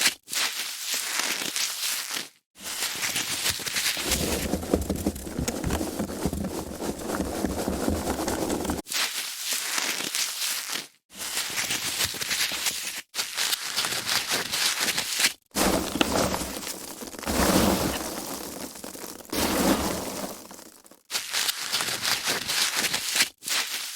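Foam packaging being handled: crackling, rubbing and rustling, in a string of takes each cut off by a sudden short gap of silence. Two of the longer takes carry a heavier, deeper rubbing.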